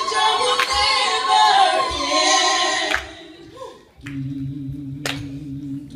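A small vocal group sings a cappella in harmony into microphones, and the song breaks off about three seconds in. A steady low hum follows, with a single sharp click or clap about a second after it starts.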